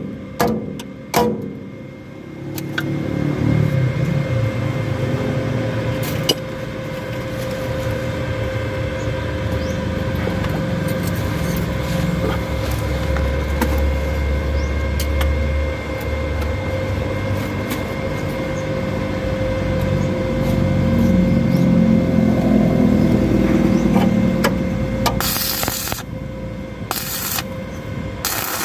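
A vehicle engine running steadily, with its low rumble swelling a little midway, and two short bursts of hissing noise near the end.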